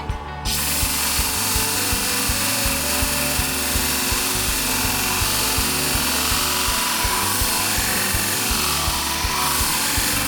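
Shear blade being honed against a spinning 600-grit sharpening wheel: a steady abrasive hiss that starts about half a second in. Background music with a steady beat plays under it.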